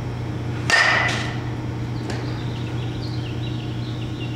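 A baseball bat hits a ball about a second in: one sharp crack with a short ringing ping, followed by a softer knock. A steady low hum runs underneath.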